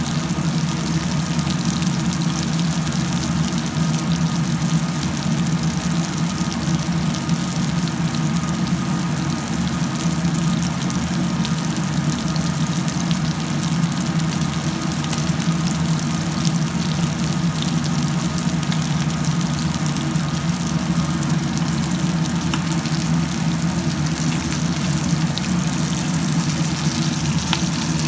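Fish shallow-frying in oil in a pan: steady sizzling with many fine crackles and pops, over a steady low hum.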